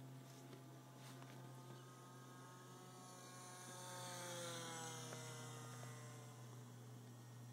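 Electric RC model plane's motor and propeller whining as it flies past, swelling to a peak about four seconds in and falling in pitch as it goes by, over a steady low hum.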